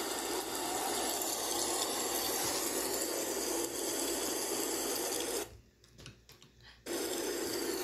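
Recorded snowstorm sound effect, steady howling wind, played through a laptop speaker. It cuts out for about a second and a half near the end, then resumes.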